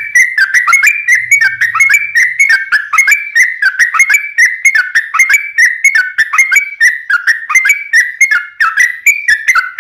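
Sooty-headed bulbul (trucuk) singing a long, unbroken run of quick whistled notes, several a second, without pause.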